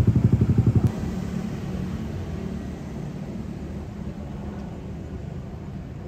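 A nearby engine putters in quick, even pulses, about eleven a second, and cuts off abruptly about a second in. A steady low road rumble of a moving vehicle follows.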